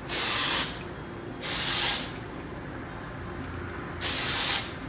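Aerosol can of Pearlessence dry shampoo spraying onto hair roots in three short hissing bursts, each about half a second long: one right away, one about a second and a half later, and one near the end.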